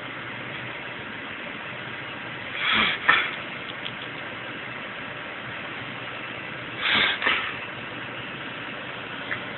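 Two sneeze-like episodes from an animal, about four seconds apart, each a short breathy rush ending in a sharp burst. The owner wonders whether these are reverse sneezes. A steady hiss underlies them.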